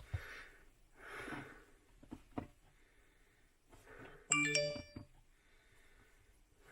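A single electronic chime of several tones at once, lasting under a second, about four seconds in: the 2007 Mini Cooper S's dashboard warning gong, signalling the parking distance control (PDC) failure.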